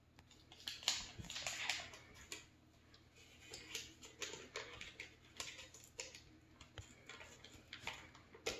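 Faint crinkling of butter-stick wrapper paper being peeled, with scattered small clicks and taps as the butter is pressed off the wrapper into a steel stand-mixer bowl.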